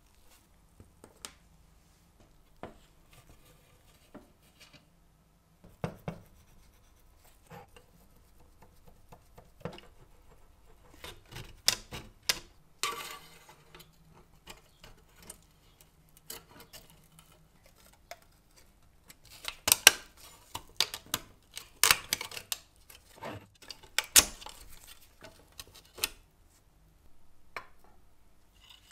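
Small metal clinks, taps and scrapes from a rusted 1920s Bing tinplate live-steam toy locomotive being taken apart by hand and with a screwdriver. Scattered sharp clicks and short scraping sounds, sparse at first and coming thicker and louder in the second half.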